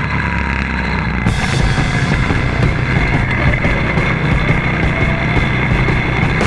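Loud hard-rock music track, with go-kart running noise beneath it; the music turns brighter, with cymbal-like hiss, about a second in.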